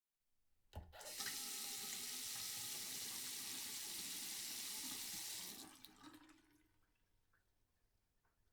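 Sink tap turned on with a knock, water running steadily into the basin for about four and a half seconds, then turned off, leaving a few faint ticks.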